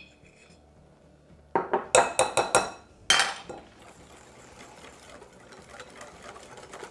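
Metal balloon whisk beating cornflour into a wet marinade in a glass bowl: about a second and a half in, quick clinking strokes against the glass, about five a second for two seconds, then softer steady whisking through the thickening mixture.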